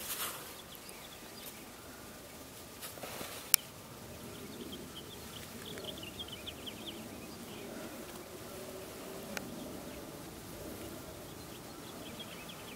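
Hens making soft, low murmuring sounds, with a run of short high chirps in the middle and a sharp click about three and a half seconds in.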